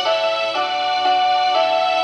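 A BlackBerry Bold 9000 ringtone playing, a melody of steady electronic notes that changes pitch about twice a second.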